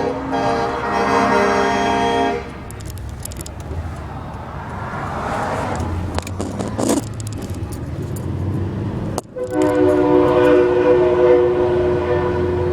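Semi-truck air horns sounding together in a chord for about two seconds, then passing traffic noise. After a brief dropout near nine seconds a horn chord starts again and is held steadily through the end.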